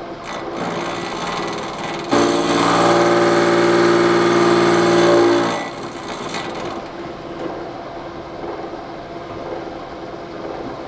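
Milling machine cutting the top off a broken stainless steel bolt stub, with a steady running noise throughout. From about two seconds in until about five and a half seconds in, the cut gets much louder, with a pitched ringing whine as the cutter bites into the steel, then drops back.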